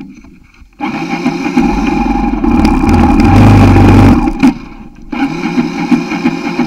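Single-cylinder four-stroke trail bike engine heard from the bike itself as it rides: almost shut off at first, it opens up just under a second in, pulls hardest about three to four seconds in, eases off briefly, then picks up again.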